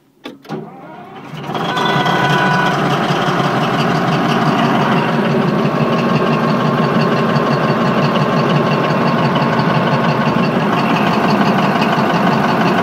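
Caterpillar D11 bulldozer's diesel engine being started cold: a few clicks, about a second of cranking, then it catches and settles into a steady, loud idle.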